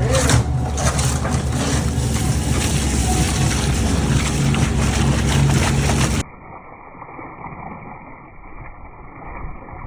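Scallop boat's engine running steadily, with a low hum and deck noise over it; about six seconds in the sound cuts off suddenly to a much quieter, muffled background.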